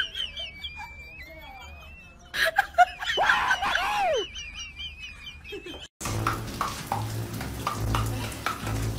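Small birds chirping by a pond, with a loud burst of human voice, laughter or an exclamation with a falling pitch, about two and a half seconds in. After a sudden cut about six seconds in comes a steady rush of noise with a low hum and some sharp knocks, fitting running shower water.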